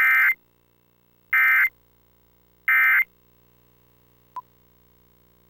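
Emergency Alert System end-of-message code: three identical short bursts of SAME digital data tones about 1.3 s apart, marking the end of the test alert. A brief faint tick follows about four seconds in.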